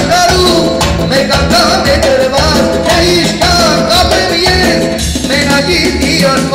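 A man singing live into a handheld microphone, amplified through a loudspeaker, over a synthesizer keyboard accompaniment with a steady beat and bass line.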